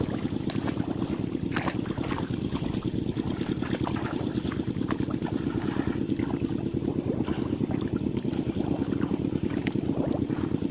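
A steady low rumble, like a motor or wind on the microphone, runs throughout, with scattered short splashes and knocks from wading through shallow muddy water.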